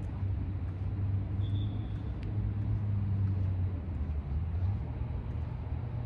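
Steady low rumble of road traffic, with a brief high tone about one and a half seconds in and a single click a little after two seconds.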